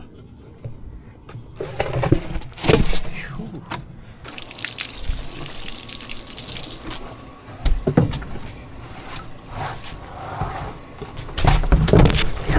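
Water splashing and running for two or three seconds, among several knocks and handling thumps.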